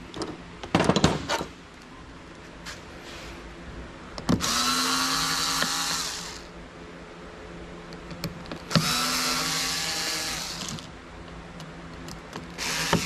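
A cordless drill-driver runs in two bursts of about two seconds each, with a shorter one near the end, driving screws out of a computer case. About a second in there is a short clatter of sharp knocks.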